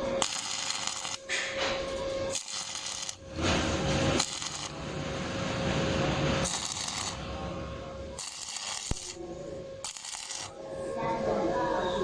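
Metal clinking and scraping from steel gate fabrication, in short clips that change abruptly every second or two; some carry a steady hum.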